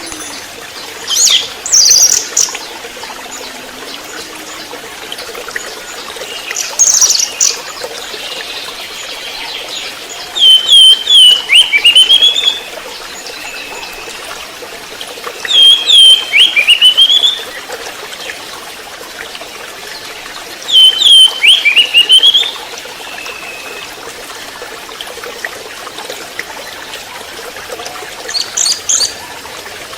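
Juvenile orange-headed thrush (anis merah trotol) calls: a sharp, rapid, sweeping phrase repeated three times several seconds apart, with shorter, higher calls near the start and end, over a steady trickle of running water.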